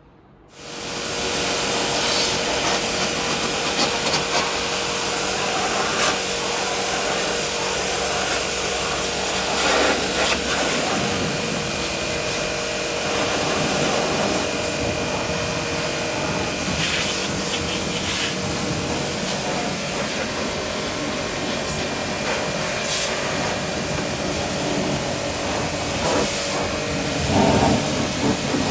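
An electric machine starts up abruptly and runs steadily, giving a loud whooshing hiss with a faint motor hum.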